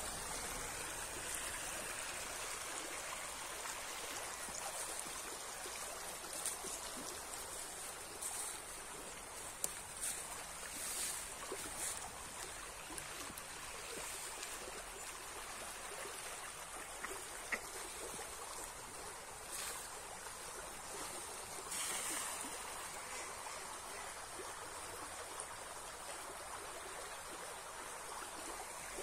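Shallow stream running and rippling over a stony bed: a steady, even water noise, with a few short, sharper sounds scattered over it.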